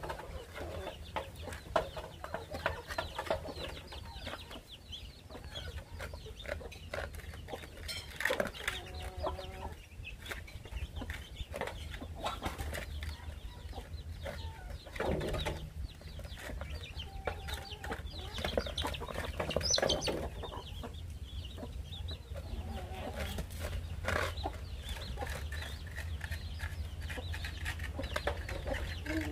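Chickens clucking while dogs eat from bowls, with frequent small clicks and smacks of eating.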